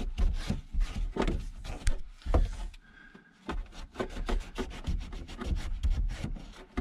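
A cloth soaked in acetone rubbed hard over the cracked fuel pump housing to clean it before gluing: quick repeated scrubbing strokes with a short pause about three seconds in.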